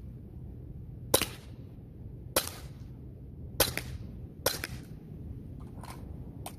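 Sig Sauer Air P320 X-Carry CO2 blowback BB pistol firing four shots, each a sharp crack, about a second apart with a shorter gap before the last. Two fainter clicks follow near the end.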